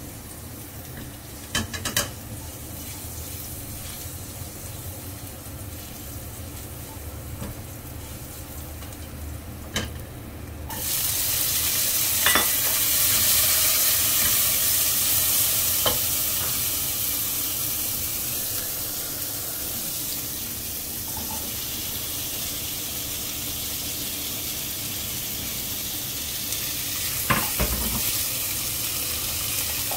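Food frying in oil in a wok, quietly at first, with a couple of spatula knocks. About a third of the way in, cut long beans go into the hot oil and a loud sizzle starts at once, then slowly settles as they are stirred with a silicone spatula. Near the end there is a short clatter as pumpkin slices drop in.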